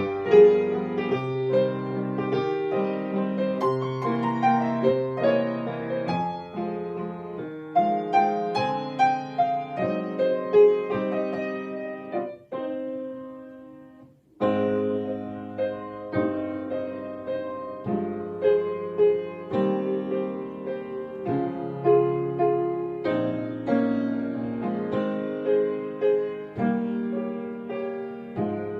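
Solo piano playing a waltz, note by note with chords. About halfway through, the sound dies away into a brief pause, then the playing starts again.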